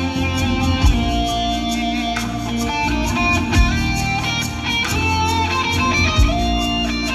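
Live electric guitar lead playing long held and bending notes over a rock band's backing, with steady cymbal ticks and a heavy low hit about every two and a half seconds.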